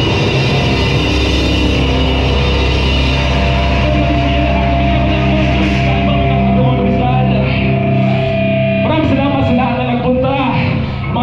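Live heavy metal band playing loud: distorted electric guitars, bass and drums. About halfway the cymbal-heavy drumming falls away and held, ringing guitar chords carry on, the deep bass dropping out near the end under wavering guitar notes.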